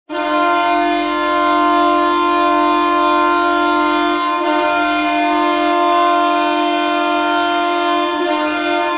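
Ottawa Senators NHL goal horn blowing one long, loud, steady blast that starts abruptly and holds an unchanging pitch.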